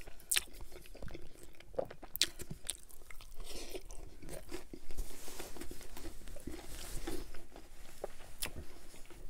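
Close-up mouth sounds of a man biting and chewing crunchy cauliflower-crust pizza, with sharp crunches and wet chewing clicks. A paper napkin rustles against the mouth near the end.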